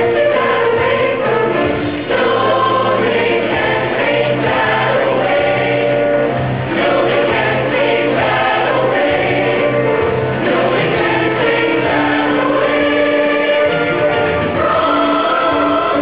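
High-school show choir singing, several voice parts holding chords together and moving from chord to chord every second or two.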